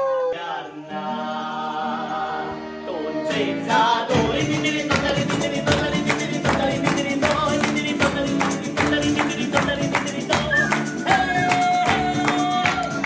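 A Sicilian serenade: acoustic guitar strumming and a tambourine keeping a steady beat under a man singing. It starts with a few held notes, and the full strummed rhythm comes in about three seconds in.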